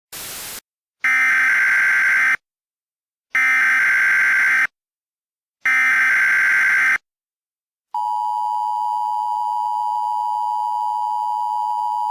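Start of an Emergency Alert System broadcast: a brief burst of static, then three identical SAME header data bursts of a little over a second each, with short gaps between them. About eight seconds in, the steady two-tone EAS attention signal (853 and 960 Hz) begins and holds.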